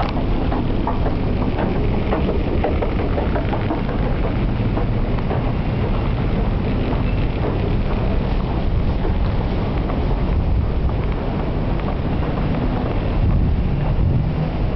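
London Underground train running, a steady loud rumble with light rattling and clicking throughout.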